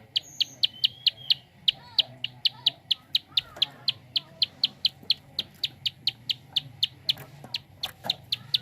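Prenjak (prinia) giving its fast 'klik' call: an even, unbroken series of sharp high ticks, about five a second, with faint chirps of other birds behind.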